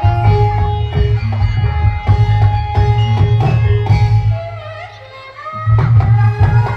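Loud Javanese jaranan/barongan accompaniment music with hand drums, held melodic notes and a heavy bass. The bass and drums drop away briefly about four and a half seconds in and come back about a second later.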